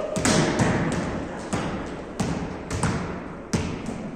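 Volleyballs being struck by players' hands and forearms in passing and setting: about six sharp slaps at uneven intervals, echoing in a large gym hall.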